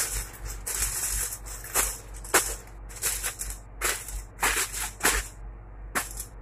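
Aluminium foil crinkling and crackling as a hand presses and crimps it over the rim of a cooking pot, sealing it for dum cooking. The sound comes as a string of crackles that stops about five and a half seconds in.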